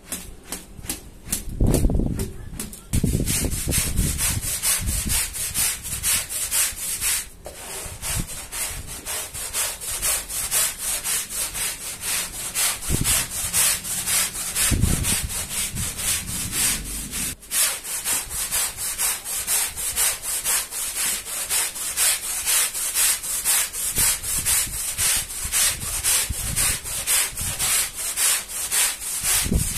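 Stiff-bristled push brush scrubbing a wet, soapy rug on a tiled floor in rhythmic back-and-forth strokes, about two a second, with a few dull thumps among them.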